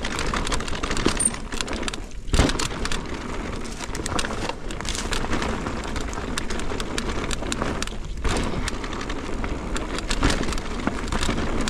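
Mountain bike riding a rough forest dirt trail: tyres rolling over dirt and loose debris, with frequent sharp clicks and knocks as the bike jolts over the ground. The noise drops away briefly twice, about two seconds in and again about eight seconds in.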